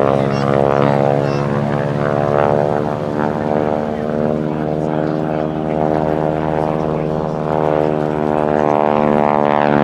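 North American Harvard's nine-cylinder Pratt & Whitney Wasp radial engine and propeller running at high power in flight, a loud, steady rasping drone whose pitch shifts slightly as the aircraft passes.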